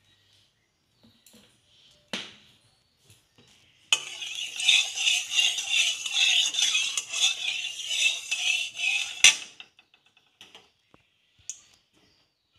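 Flat steel spatula scraping and swirling hot mustard oil around a metal kadai: a fast, rough scratching for about five seconds that ends in a sharp clink. A single knock of the spatula on the pan comes a couple of seconds before it.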